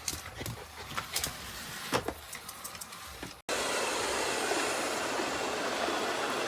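Robot vacuum cleaner: first a few scattered clicks and knocks, then, after a sudden cut about three and a half seconds in, its motor and brushes running with a steady rushing whir.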